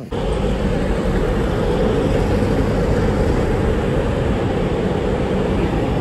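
Steady road traffic noise from a street with a bus, cars and a motorbike driving past, starting suddenly with no build-up.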